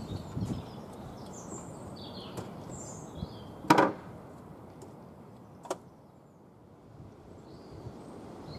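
Small birds chirping over a steady outdoor background, with one loud sharp knock about four seconds in and a lighter click two seconds later.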